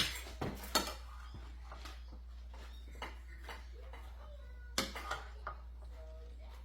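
A few light clinks and knocks of dishes and a serving spoon, bunched in the first second with scattered ones later, over a low steady hum.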